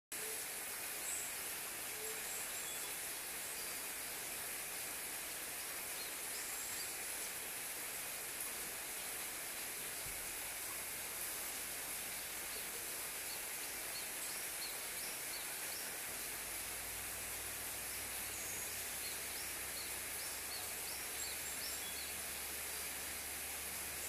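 Steady woodland background hiss with faint, high, short chirps of small birds at intervals, more often in the second half.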